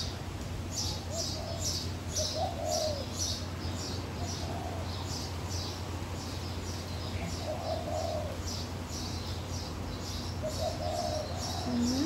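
Doves cooing: short, arched coo phrases every two to three seconds, over another small bird's quick, regular high chirps at about two to three a second. A faint low hum runs underneath.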